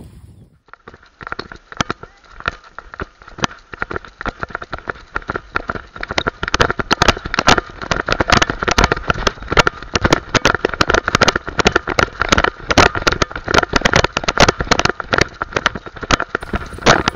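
Dog-mounted harness action camera's own audio as the dog runs: rapid clicking and rattling of the camera in its mount, thicker and louder from about six seconds in, over a faint steady tone.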